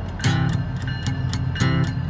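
Music with a strummed guitar, the strokes coming in a quick, even rhythm.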